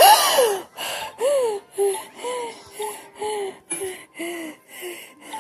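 A person crying in short, breathy sobbing gasps, about two a second, each falling in pitch, the first the loudest.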